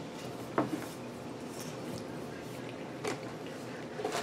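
Steady room hiss with a few short soft clicks and smacks from people chewing snack cake, and light handling of a cardboard snack box near the end.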